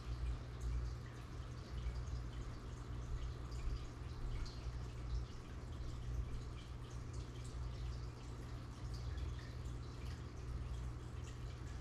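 Aquarium water bubbling and trickling: many small drip-like pops from air bubbles breaking at the surface, over a steady low hum from the tank's equipment.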